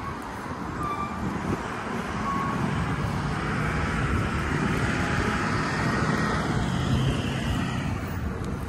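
Engine noise of something passing outdoors, a steady hum that swells over a few seconds and eases slightly near the end.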